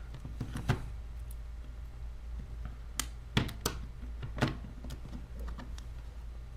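Scattered small clicks and ticks of a precision screwdriver working a tiny screw in an opened iPhone, with a few sharper taps between about three and four and a half seconds in, over a steady low hum.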